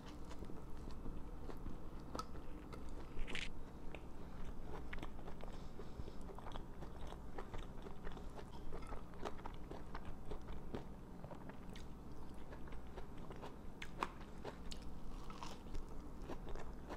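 A person biting into and chewing a sandwich on soft gluten-free bread, picked up close by a clip-on microphone: a steady run of small wet mouth clicks and crunches, with a few louder bites about three seconds in and near the end.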